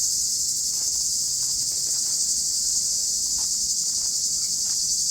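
A chorus of cicadas shrilling, a steady high-pitched buzz that does not let up.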